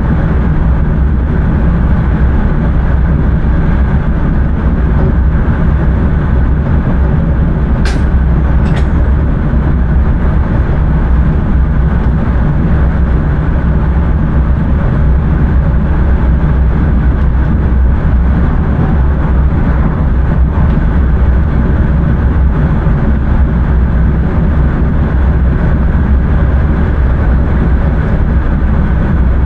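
Intercity train running at speed, heard from the driver's cab: a steady deep rumble of wheels and running gear. Two short sharp clicks come about eight seconds in.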